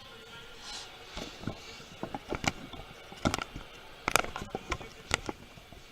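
Irregular clicks and light knocks of a trading-card box and its packs being handled on a table, starting about a second in and growing sharper toward the middle.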